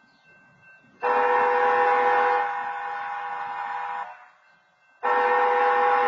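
A railroad-crossing wayside horn sounding a train-horn chord in two blasts. The first starts abruptly about a second in and lasts about three seconds, loudest for its first second and a half. The second starts about five seconds in.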